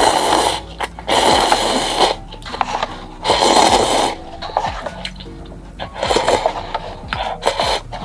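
Spicy instant cup noodles and broth slurped from the bowl held at the mouth, in four or five long noisy draws, over soft background music.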